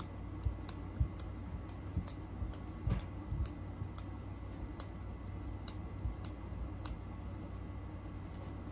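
Light, irregular clicks and taps as a dust-absorber sticker is dabbed repeatedly onto a phone's glass screen, with a few soft thumps in the first few seconds.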